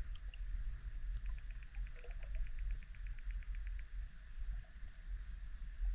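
Underwater ambience as picked up by a submerged camera: a steady low rumble, with a run of quick faint clicks, about nine or ten a second, starting about a second in and lasting a couple of seconds.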